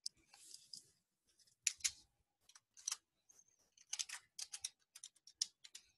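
Computer keyboard being typed on: a few scattered keystrokes, then a quicker, irregular run of key clicks over the last couple of seconds.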